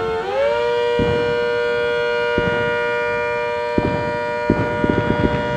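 Rotating-horn siren sounding a steady, multi-tone chord. Its pitch dips briefly just after the start, then settles and holds.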